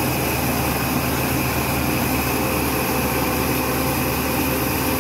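Saw cotton gin running steadily while ginning cotton, driven by a tractor: a constant, dense mechanical whirr with a low engine hum underneath.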